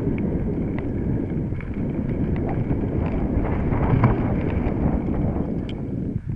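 Mountain bike riding over a rough dirt trail: a steady rumble of tyres and wind on the microphone, with scattered rattling clicks from the bike jolting over the ground.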